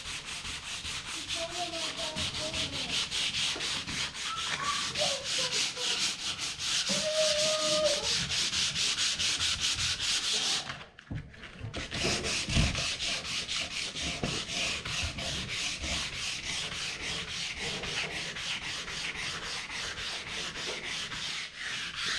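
Sandpaper rubbed by hand over a wooden surface in quick, steady back-and-forth strokes, with a brief pause about eleven seconds in.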